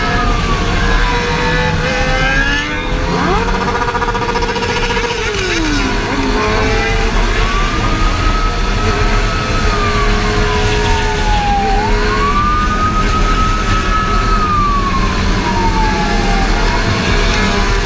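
Police siren wailing in slow cycles, rising, holding high and falling about every five seconds, over the steady rumble of motorcycle engines and wind noise. Early on a second siren line overlaps it.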